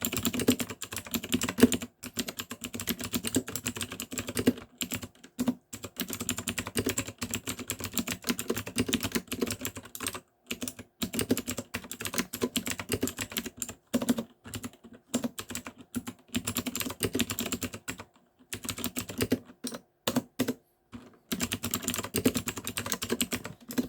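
MUCAI MKA610 mechanical keyboard fitted with clicky blue switches, typed on in fast runs of keystrokes broken by short pauses.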